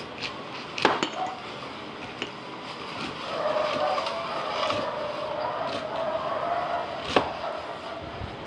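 A fork clicks against a plate while a woman eats, with sharp clicks about a second in and again about seven seconds in. From about three seconds in, a wavering, sustained sound runs in the background.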